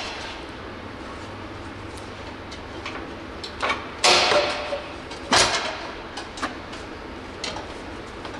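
Scattered clanks, clicks and scrapes of hand tools and metal parts while a stainless dual-tip exhaust is fitted to a side-by-side's frame, with two louder scraping noises about four and five and a half seconds in.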